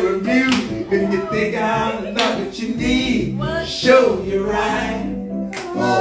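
Several voices singing an R&B song together over an electric keyboard, with a low keyboard note sustained underneath.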